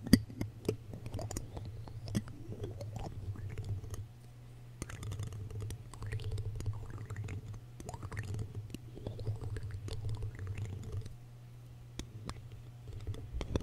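Clear plastic spoon rubbed and tapped against a foam-covered microphone, giving irregular sharp clicks and scratchy scraping.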